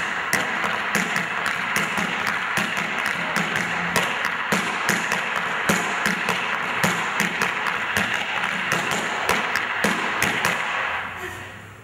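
Tap dancing in boots on a small square board: quick, irregular clicks of heels and toes, several a second, over a steady hiss that fades out near the end.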